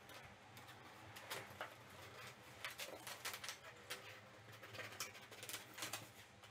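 Knife slitting packing tape on a cardboard carton: a run of faint, irregular scratches and crackles, with the cardboard flaps starting to be pulled open near the end.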